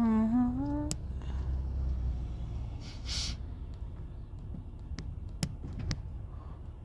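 A person hums a short note that rises in pitch and lasts about a second at the start. After that there is only a low steady rumble, with a brief hiss about three seconds in and a few faint clicks near the end.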